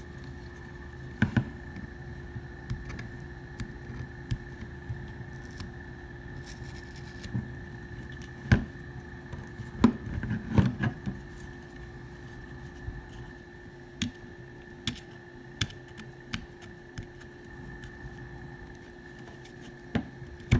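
Irregular clicks and taps from a Glock 19's polymer frame being handled as old skateboard grip tape is peeled off it, over a steady faint hum.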